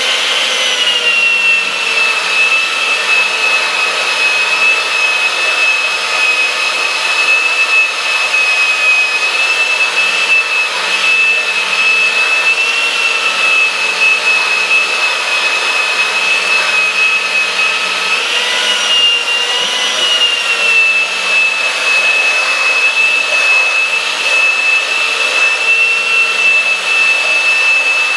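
Handheld Skil belt sander running steadily with a high motor whine as it sands with the grain across the painted face of a carved wooden sign, taking off the paint. The pitch wavers briefly about two-thirds of the way through.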